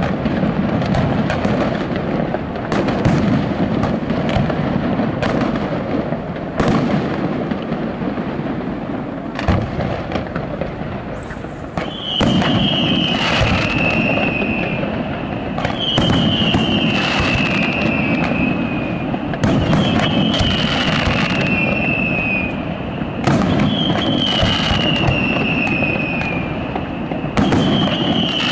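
Aerial fireworks display: a steady run of sharp bangs from shells launching and bursting over continuous background noise. From about halfway, a loud whistle that slides slightly down in pitch and lasts about two seconds sounds every four seconds or so, each one starting with a bang.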